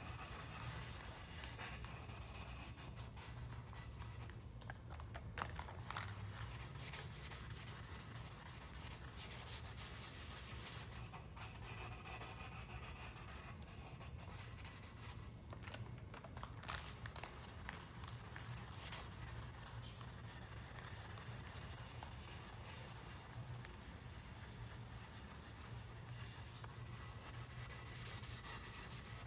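Hand sanding or scuffing of a cured epoxy repair on a carbon fiber rigger: abrasive rubbed back and forth over the surface in quick scratchy strokes, prep to give the clear coat something to grip.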